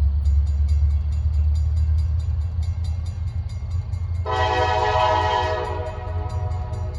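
Freight train led by an SD70MACe diesel locomotive running with a steady deep engine rumble. About four seconds in, the horn sounds one chord blast of a little over a second. Light rhythmic clicking runs underneath, about three a second.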